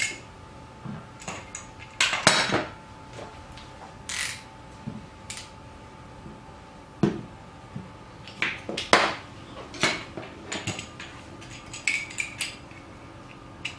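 Irregular clinks and knocks of stainless steel kitchen tools, a grater and a knife, being handled and set down on a wooden tabletop while vegetables are cut.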